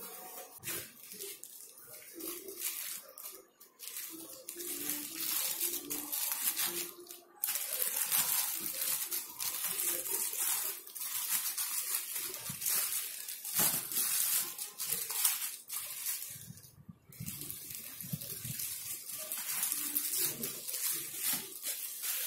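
Clear plastic wrapping crinkling and crackling as it is pulled off a cylindrical pleated air-purifier filter. Quieter handling noise comes first, then dense, irregular crackling from a few seconds in, with a short pause late on.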